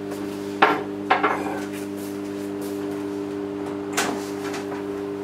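A ceramic cup set down in a wire dish rack, clattering in two quick knocks about half a second and a second in. About four seconds in there is a sharp click as the air fryer is handled. A steady appliance hum runs underneath.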